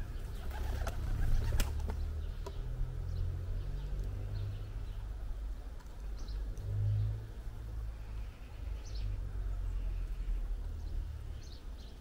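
Birds at a garden feeder: short, faint high chirps scattered through, and a brief flurry of wing flaps about a second in, over a steady low rumble.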